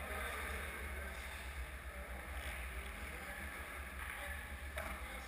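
Indoor ice rink ambience: a steady low hum with faint, distant noise of skating from play at the far end of the ice.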